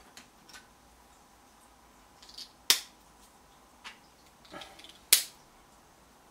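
Small plastic LEGO pieces rattling as they are picked from the pile, with two sharp plastic clicks about two and a half seconds apart as pieces are snapped or set down.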